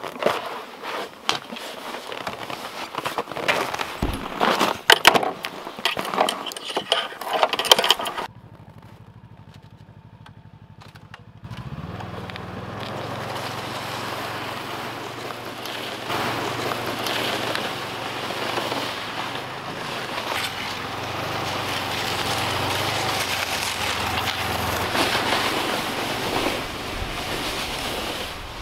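Knocks and clatter for the first eight seconds. Then a Ski-Doo Tundra snowmobile's four-stroke engine runs quietly, and from about eleven seconds in it runs louder and steadily as the machine travels.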